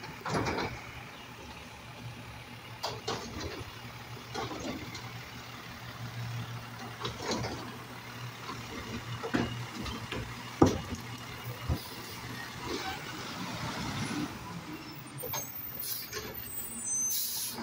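Automated side-loader garbage truck running with a steady low hum while its hydraulic arm lifts a trash cart, dumps it into the hopper and sets it back down: a series of clunks and knocks, the sharpest about eleven seconds in. A short hiss comes near the end.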